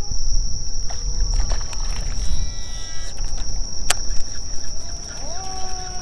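Evening insects chirring in one steady high trill over a low rumble. A faint siren wail rises near the end and then slowly falls.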